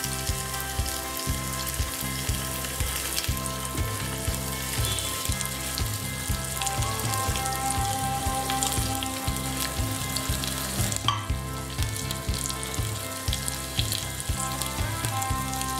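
Masala-coated pearl spot fish frying in hot coconut oil in a pan: a steady sizzle.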